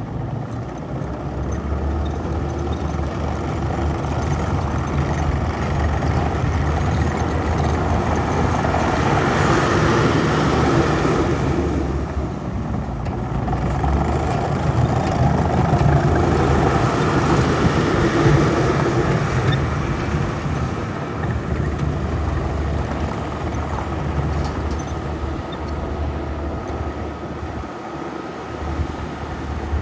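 2004 JCB tracked skid steer loader's diesel engine running steadily. It works up louder twice, about a third of the way in and again just past the middle, then eases back.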